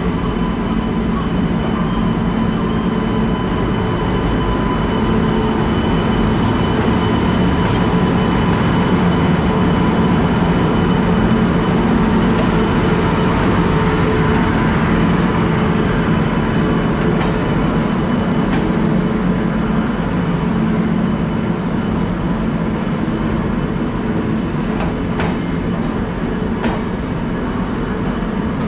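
Indian Railways electric locomotive hauling a passenger train slowly past on the adjacent track. There is a steady, loud rumble of the locomotive and coaches with a constant hum, and a few sharp clicks from the wheels near the end.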